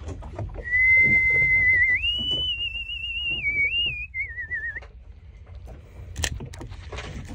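A person whistling a short wavering tune for about four seconds: one clear note held, then stepping up higher with a warble, then sliding back down and trilling before it stops. A steady low rumble runs underneath, and there is a sharp click about six seconds in.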